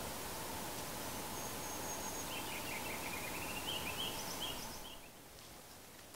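A songbird singing over a steady rush of creek water. It gives a thin high whistle about a second in, then a quick run of chirping notes. The water noise drops off abruptly near the end.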